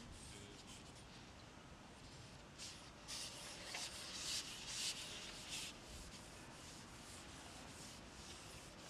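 Faint scraping rubs, several short ones in a run starting about two and a half seconds in and lasting about three seconds, of a long carbon fishing pole sliding through the hands as it is shipped back out.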